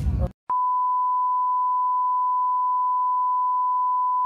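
A steady electronic beep at one pure pitch of about 1 kHz. It starts abruptly about half a second in, just after the voices and music cut off, and holds unchanged without a break.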